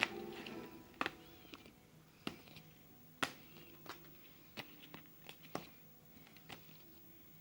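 Irregular sharp taps and clicks, roughly one a second, from light objects being knocked or handled.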